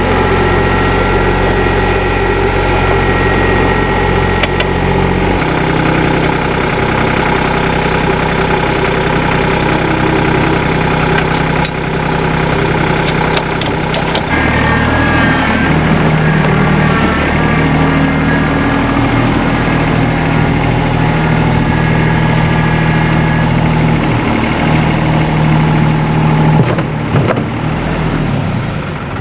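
New Holland TC35DA tractor's diesel engine running, its speed changing a couple of times, with a few sharp clicks near the middle.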